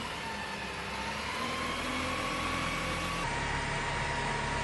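Water tanker truck's engine running, its note slowly rising in pitch. About three seconds in, the sound cuts abruptly to a steadier engine note with a slow low throb.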